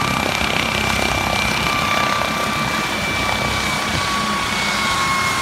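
Air ambulance helicopter running on the ground: a steady rush of engine and rotor noise with a high turbine whine that slowly sinks in pitch.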